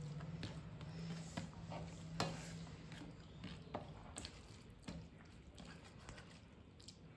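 Close-miked eating sounds: wet chewing with irregular mouth clicks and smacks as rice, curry and fish are eaten. A low steady hum sounds under the first few seconds and stops.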